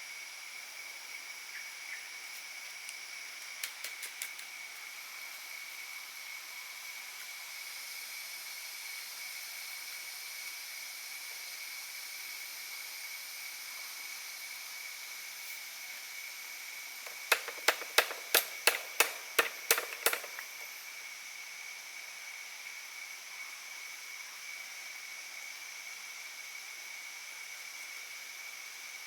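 Steady high-pitched drone of forest insects, with a quick run of about ten sharp clicks or knocks a little past the middle.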